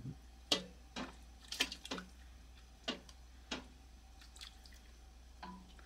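Liquid dripping and splashing as cooked chicken thighs are lifted out of a stockpot of hot broth with metal tongs: about seven short, separate drips, splashes and taps, all faint.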